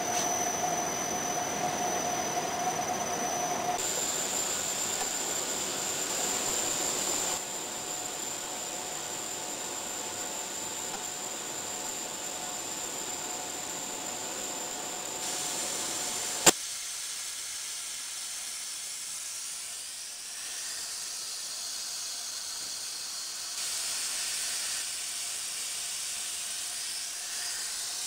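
PS foam profile extrusion line machinery running: a steady hiss and hum with a high, even whine. The sound changes abruptly several times, with one sharp click about sixteen seconds in.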